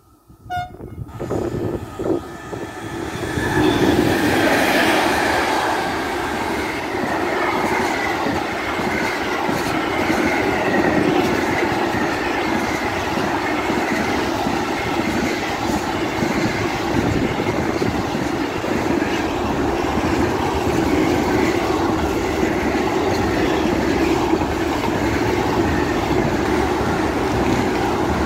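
Long freight train of low-floor wagons carrying lorry trailers passing close by, its wheels running steadily on the rails. The noise builds over the first few seconds as the train comes up, then holds steady as the wagons roll past.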